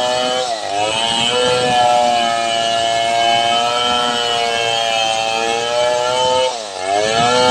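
Stihl 070 two-stroke chainsaw running at high revs while ripping a log lengthwise along the grain. Its engine speed drops briefly and picks back up twice, about half a second in and near the end.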